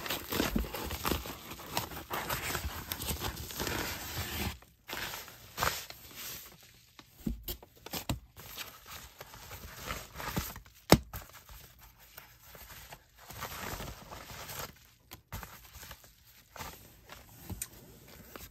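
Paper and plastic craft-supply packaging being handled and torn open by hand. The crinkling and tearing is busiest in the first four or five seconds, then turns into intermittent rustles and clicks, with one sharp tap about eleven seconds in.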